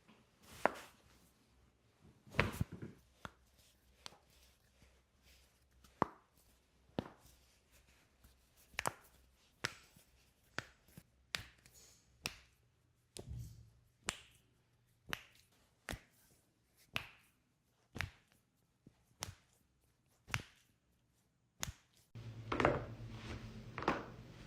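A slow, irregular series of sharp clicks and taps, roughly one a second, during chiropractic treatment. Music with drums comes in near the end.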